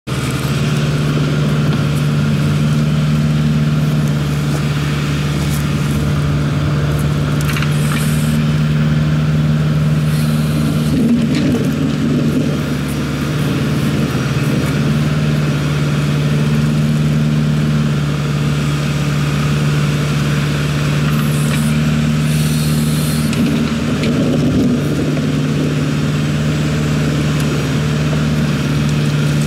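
Kubota L48 backhoe's diesel engine running steadily. Its even note breaks up twice, around eleven seconds in and again around twenty-four seconds, with brief rougher, noisier stretches in between.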